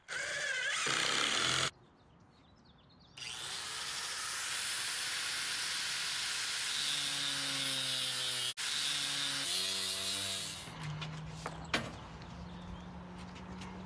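A cordless drill briefly drives a screw into cement board. Then, after a break, a power saw cuts through a sheet of USG Durock cement board for about seven seconds with a loud, even, hissing grind. A fainter steady hum follows near the end.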